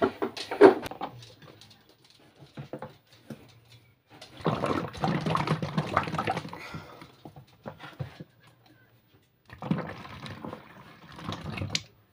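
Thick homemade liquid laundry soap being poured from a plastic bowl into a clear plastic bottle, in uneven wet spurts. The longest and loudest pour comes about four to seven seconds in, with shorter pours and a few knocks around it.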